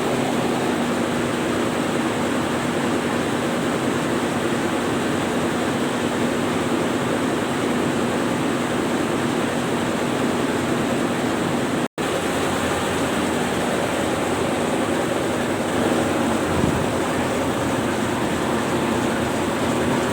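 A tugboat's twin main engines run steadily under a heavy, even rush of wind and water. About twelve seconds in, the sound drops out for a split second at a cut.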